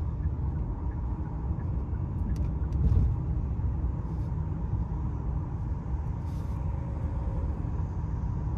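Road noise inside a moving car's cabin on a highway: a steady low rumble of tyres and engine, swelling briefly about three seconds in.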